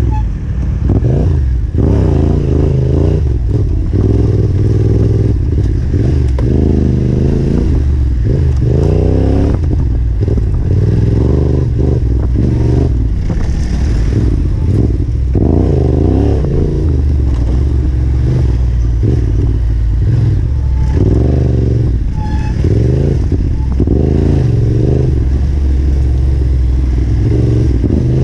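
Yamaha Ténéré 700's parallel-twin engine on the trail, revving up and falling back again and again as the throttle is worked, with knocks and clatter from the bike over rough ground.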